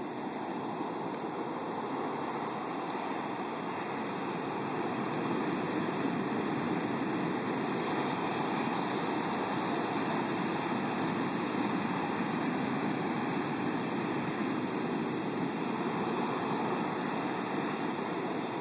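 Storm-surge surf breaking offshore and washing up a sandy beach: a steady, even rush of water that builds a little over the first few seconds.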